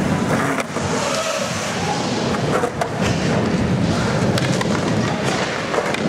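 Skateboard wheels rolling and carving around a concrete bowl: a steady rumble broken by a few sharp clacks.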